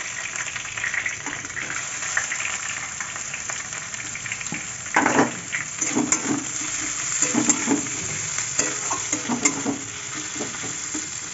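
Sliced onions and curry leaves sizzling in hot oil in a kadai. From about five seconds in, a steel spatula scrapes and knocks against the pan as they are stirred.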